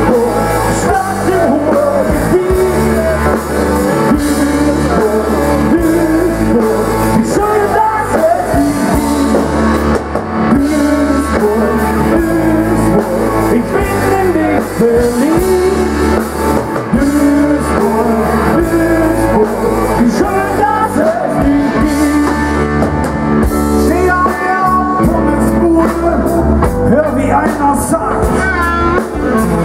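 Live rock band playing: electric guitars, bass, drum kit and keyboards, with male singing over the top.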